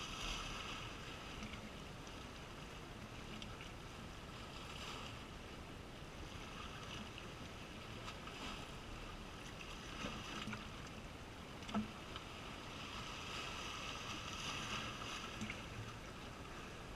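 Small sea waves washing in over shore rocks, a hiss that swells and eases every few seconds, with a couple of light knocks.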